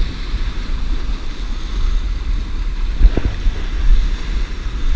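Wind buffeting the microphone with a rough, uneven rumble, over waves washing against the jetty rocks.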